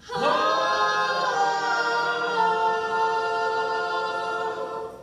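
Choir singing a cappella: the voices slide up into the song's final chord and hold it for about five seconds, with a couple of inner voices moving partway through, then cut off together at the end.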